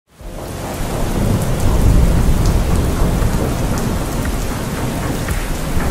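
Steady heavy rainfall with a deep rumble of thunder that swells between about one and three seconds in. It fades in quickly at the very start.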